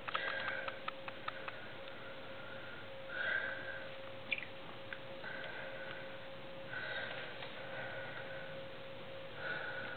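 Pen scratching on notebook paper in short strokes, several times, with a few light clicks in the first second or so and a faint steady hum underneath.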